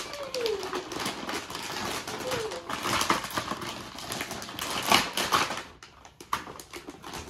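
Plastic and cardboard toy packaging crinkling and crackling as it is opened and handled: a dense run of quick rustles and snaps that thins out near the end.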